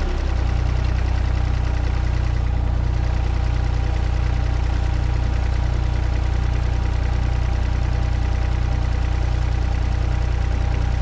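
Mini skid steer's engine dropping to idle right at the start, then idling steadily.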